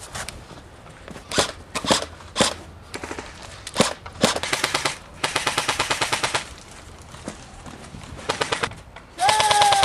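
Airsoft guns firing: a few single shots in the first few seconds, then rapid full-auto bursts about four to six seconds in, and another burst near the end.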